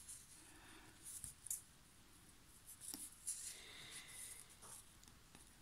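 Faint rustling and crinkling of a rolled diamond painting canvas in its plastic wrapping as it is turned over in the hands, with a few small ticks.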